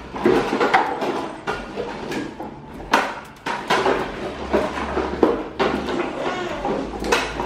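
Hard plastic ride-on toys knocking and clattering on a tiled floor as they are moved about, in a string of irregular sharp knocks.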